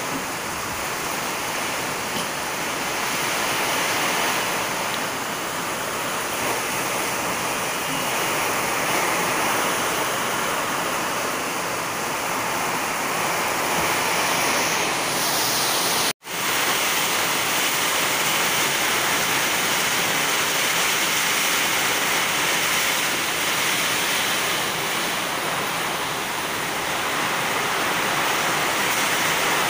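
Very heavy rain pouring down: a steady, loud rushing hiss that breaks off for an instant about halfway through, then carries on unchanged.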